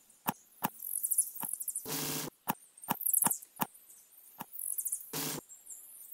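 A series of sharp, irregular clicks with faint high scratchy sounds between them, and two short noisy bursts, about two seconds in and again near five seconds.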